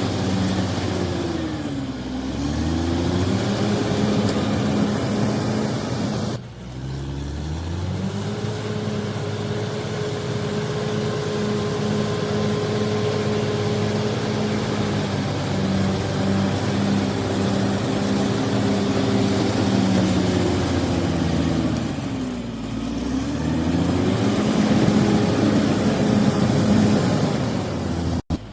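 Heavy earth-moving machine's engine running hard. Its revs sag and pick up again a few times, and a high whine rises and falls with them. The sound breaks off briefly about six seconds in and stops abruptly near the end.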